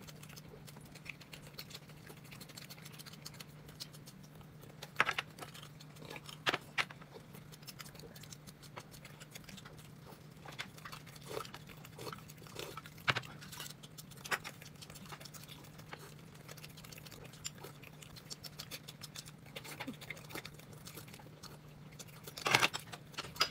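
Someone eating noodles: scattered short chewing and mouth sounds over a steady low hum.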